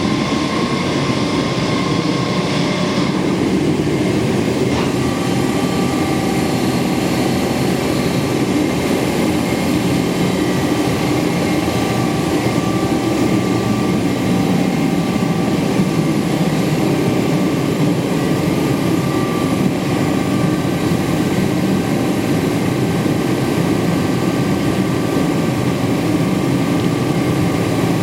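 Hydraulic pump of a 1994 Amada Promecam HFBO 170-ton CNC press brake running steadily, with a constant hum and no strokes or impacts; a faint click comes about five seconds in.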